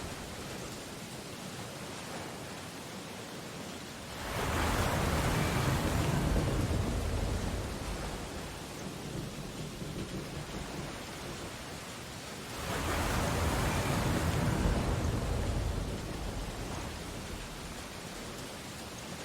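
Ocean waves washing in, with two large waves breaking, the first about four seconds in and the second about eight seconds later, each surging up and slowly fading back into a steady wash of surf.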